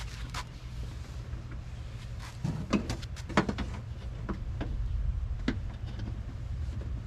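Scattered clicks and knocks of a rear bumper being handled and fitted onto a car, heaviest a few seconds in, over a steady low rumble.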